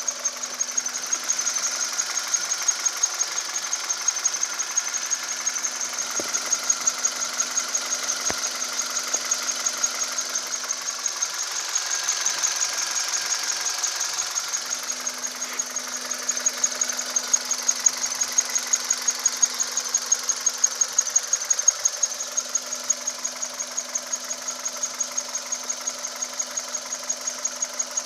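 2010 Kia Cerato engine running with an extraneous high-pitched noise that pulses in a rapid, even rhythm over a steady low hum.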